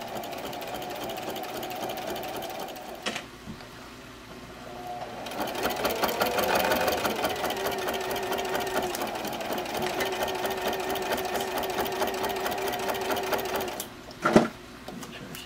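Electric sewing machine with a walking foot stitching heavy vinyl. It runs briefly, stops with a click about 3 s in, then starts again about 5 s in, speeds up and runs steadily in rapid stitching for about eight seconds before stopping. A sharp knock follows shortly after it stops.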